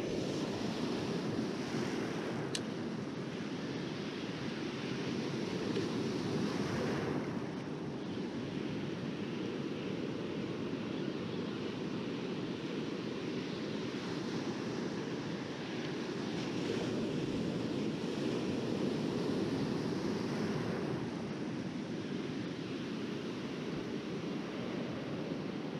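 Ocean surf washing through the shallows, a steady rush that swells twice as waves run in and ease off.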